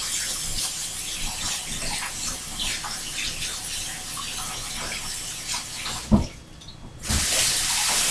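Food sizzling in a frying pan on the stove: a steady hiss with scattered light crackles. A single thump comes about six seconds in, then the hiss drops away for under a second and comes back louder.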